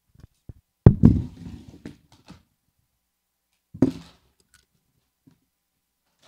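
Handling noise from a handheld microphone as it is put down into a stand on a table: a loud, deep thump about a second in followed by brief rubbing and knocking, then a second thump near four seconds.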